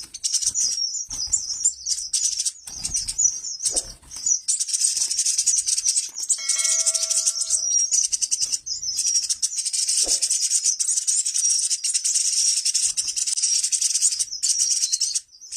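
A colony of small aviary finches and canaries chirping together in a dense, continuous high-pitched chatter, with a short held note about halfway through.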